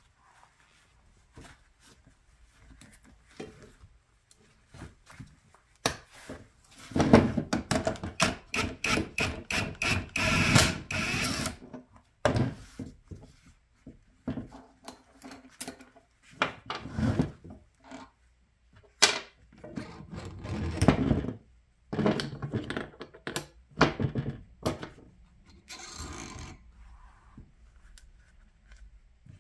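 Tools working on a Bilstein shock absorber as it is taken apart: a dense run of rapid knocks and rattles for several seconds, then scattered metal clunks and scrapes.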